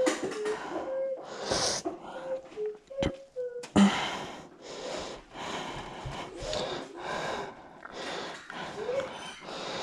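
A woman's breathy exhalations and puffs, with short pitched vocal sounds in the first few seconds, as she works very hot mashed potato in gloved hands. From about four seconds in, the puffs and handling noises come in short, frequent bursts.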